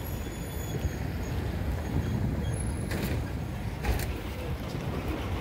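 Low, steady rumble of road vehicles as a van drives over a level crossing. Two short, sharp knocks come about three and four seconds in.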